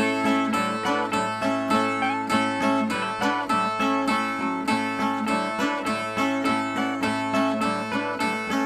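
Two Brazilian ten-string violas (viola nordestina) playing the instrumental interlude between sung stanzas of a repente: a steady, rhythmic plucked and strummed pattern at about three to four strokes a second.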